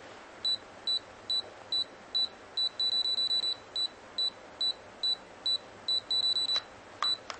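Vitalograph COPD6 COPD screener's keypad beeping: short, high beeps about two a second as the arrow button steps the age value down, with two stretches of rapid beeping where the button is held and the value scrolls.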